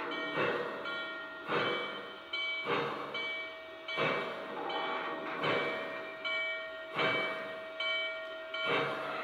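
Lionel Legacy O-scale Norfolk and Western Class J model locomotive's onboard sound system playing steam exhaust chuffs, about one a second and slowly spacing out as the engine creeps along, over a steady tone.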